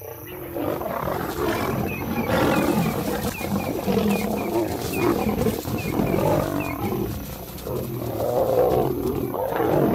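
Lions snarling and growling in a fight: lionesses driving back a male lion.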